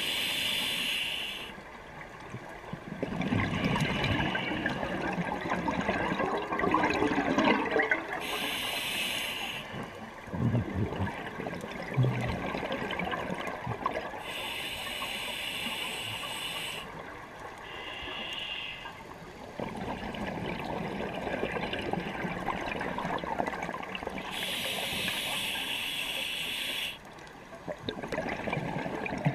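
A scuba diver breathing through a regulator underwater: four hissing inhalations several seconds apart, each followed by a longer rush of exhaled bubbles.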